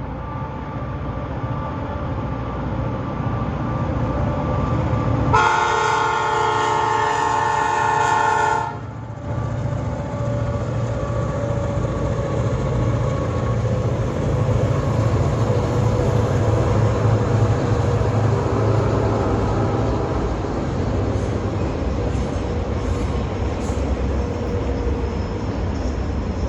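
Diesel-electric locomotives of a grain train approaching, their engines running low and steady and growing louder. About five seconds in, the lead locomotive sounds its horn, a chord of several notes held for about three seconds and cut off sharply.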